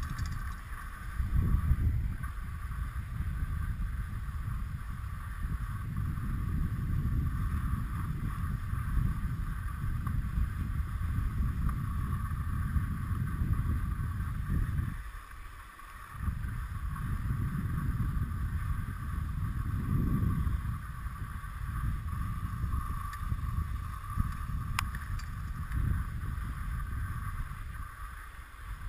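Skis running over the packed snow of a Poma surface-lift track while being towed, a continuous low scraping rumble mixed with wind on the microphone, dropping away briefly about halfway through.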